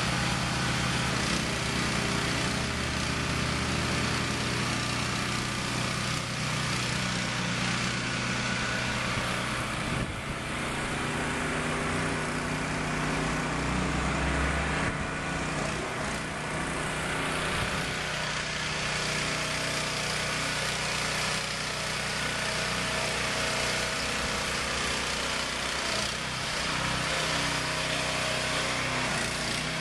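Container delivery truck's engine running steadily, with a deeper rumble swelling briefly about halfway through.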